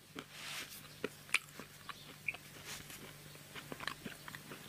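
Faint scattered clicks and ticks over a low steady hum, with a soft rush of noise about half a second in.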